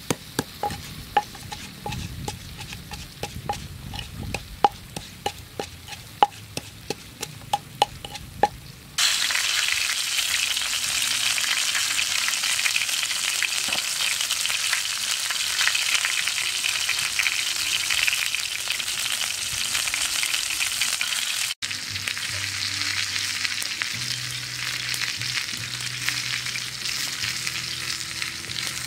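A wooden pestle knocks into a wooden mortar, about two strokes a second. After about nine seconds it gives way to a loud, steady sizzle: a whole chicken grilling on a metal tray over a wood fire.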